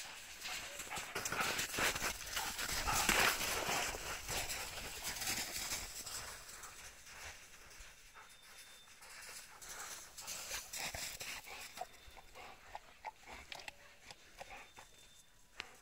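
Footsteps crunching through snow as the German shepherds move about. The crunching is loud and dense for the first five or six seconds, then turns quieter into scattered light crunches.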